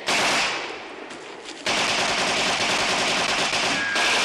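Rapid automatic gunfire: a loud burst at the start that dies away over about a second and a half, then continuous dense fire from many shots in quick succession.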